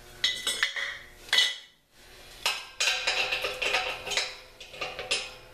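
Irregular metallic clinks and clatter of tools and parts being handled, with a short ring after the sharper knocks and a brief lull just before two seconds in.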